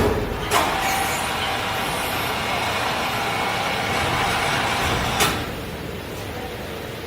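Steady metalworking machine noise with a faint held tone, starting with a sharp knock about half a second in and ending with another knock about five seconds in, after which it drops away.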